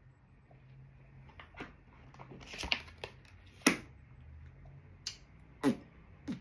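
Tarot cards being handled: about six short, sharp clicks and snaps spaced irregularly, over a faint low steady hum.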